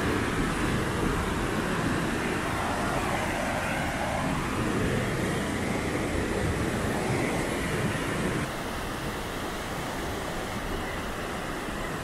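Steady roar of a large waterfall's falling water. About eight and a half seconds in, it drops suddenly to the slightly quieter rushing of river rapids.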